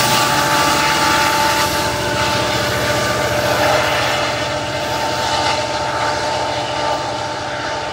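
MPI MP40PH-3C diesel locomotive with its 16-cylinder EMD 710 engine pulling away, its engine noise and a steady high whine slowly fading as it moves off.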